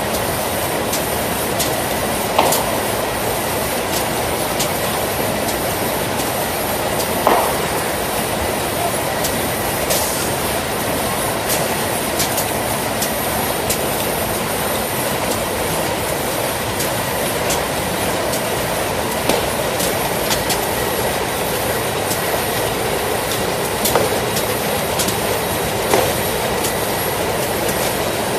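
Automatic cartoning machine running: a steady mechanical clatter from the conveyor and carton-loading mechanism, with frequent light clicks, a few louder knocks, and a faint high steady whine.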